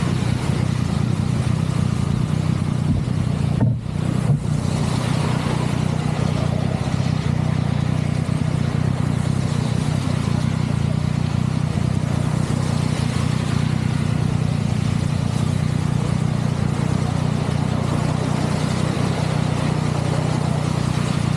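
Steady engine hum and road noise from a vehicle under way at constant speed, with a brief dip a little under four seconds in.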